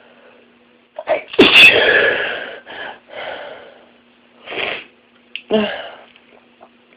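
A loud sneeze about a second and a half in, with a sharp intake just before it, followed by several shorter noisy breaths and another sharp burst near the end.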